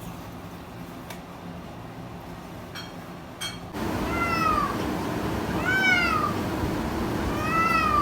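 Domestic cat making three short meow-like calls while playing, each one rising and then falling in pitch. The calls begin about halfway in, after a few faint clicks.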